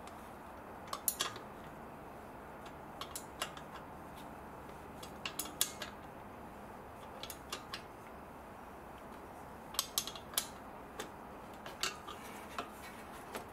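Light metallic clicks and clinks in short, scattered groups as a hand tool works the bolt on the aircon condenser's refrigerant pipe fitting.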